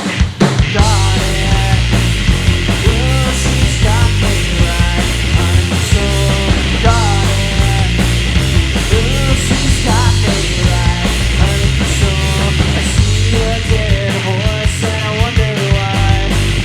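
Loud live punk/grunge rock from a power trio: distorted electric guitar, bass guitar and a drum kit playing together, with a wavering melodic line above the steady beat.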